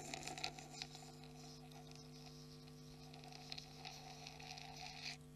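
Faint steady hum, with a faint hiss over it that stops near the end.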